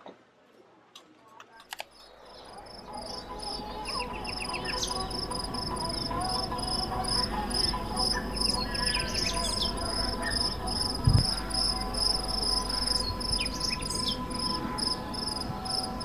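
A few clicks, then a lakeside dawn ambience fading in: insects chirping in a fast, even pulsing rhythm, with scattered bird chirps and calls over a low rumble.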